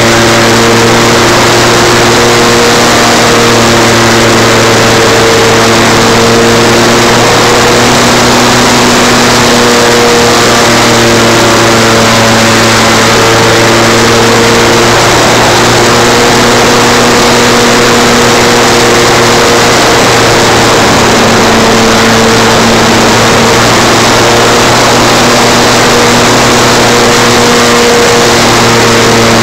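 Radio-controlled model plane's motor and propeller droning steadily in flight, the pitch shifting a little now and then with throttle, over loud rushing air noise, heard from a camera mounted on the plane's belly.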